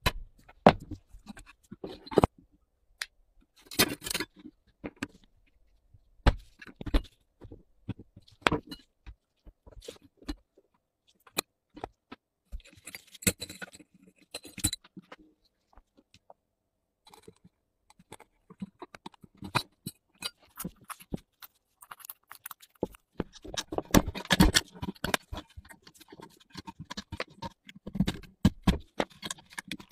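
Metal tools and small metal parts of an old rusty flashlight clinking, tapping and scraping in many short, irregular sounds, with a busier run of scraping and clicking about three-quarters of the way through.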